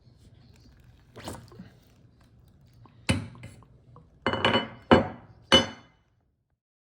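A series of sharp metallic clinks and knocks, about six in all, the later ones louder with a brief ring, as hard metal parts and tools strike each other or a hard surface; the sound cuts off suddenly near the end.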